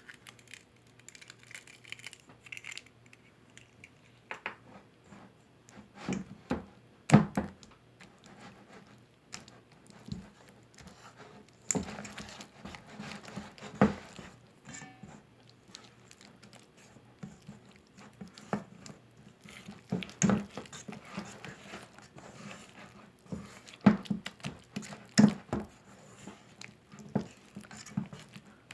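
Irregular knocks and clicks of dishes and utensils being handled while making cookies, in loose clusters with short pauses between.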